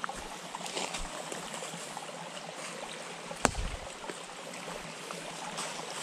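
Steady rush of a woodland stream cascading down the hillside toward a drop-off, with faint rustling and one sharp snap about three and a half seconds in.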